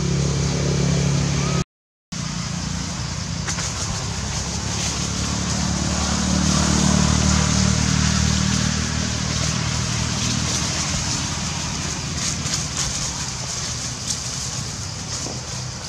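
Steady low hum of a running engine, cutting out briefly just under two seconds in.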